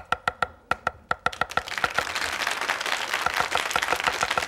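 Cleaver chopping soaked dried tangerine peel on a wooden cutting board. Even strokes about seven a second speed up about a second and a half in to a fast, continuous rattle of chops, each stroke with a brief ring.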